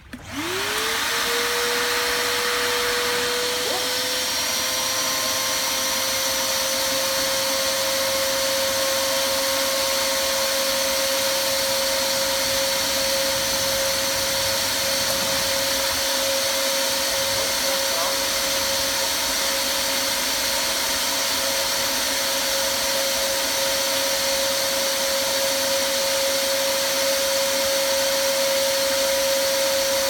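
PondXpert Cleanopond pond vacuum's motor starting up with a quick rising whine that settles into a steady high hum, running without a break as it sucks pond water and debris through its hose.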